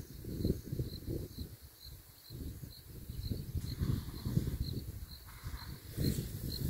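An insect, cricket-like, chirping in a steady, even rhythm of about two high chirps a second, over the low rumble of wind on the microphone.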